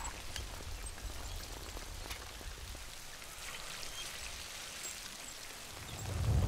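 Heavy rain falling steadily and splashing on hard surfaces. A deep low rumble fades in the first couple of seconds and swells again near the end.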